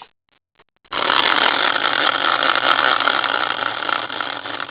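Prize wheel spinning, a dense run of rapid ticking that starts suddenly about a second in and eases off slightly toward the end.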